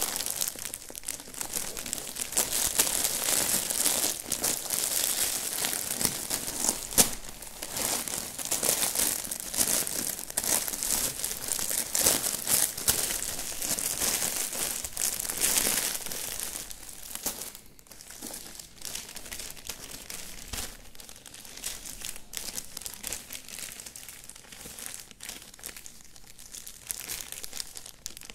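Plastic courier bag and clear plastic packets crinkling as hands handle and open them. The crinkling is dense and loud for the first half, then turns into lighter, scattered crackles.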